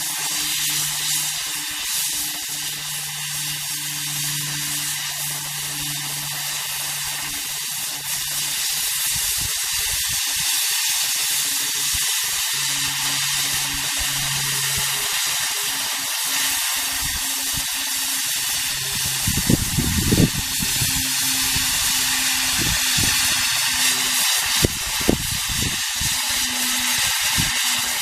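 Oxy-fuel cutting torch hissing steadily as it cuts through steel plate, with a low hum underneath that comes and goes and a couple of brief thumps about two-thirds of the way through.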